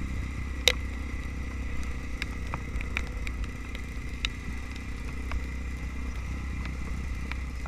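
Trail motorcycle engine running at a steady low rumble, with scattered sharp clicks and knocks, the loudest about a second in.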